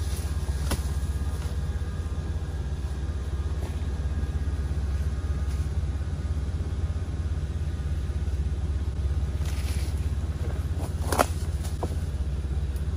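A vehicle's engine idling steadily with a low rumble, with a sharp crack about eleven seconds in and a fainter click near the start.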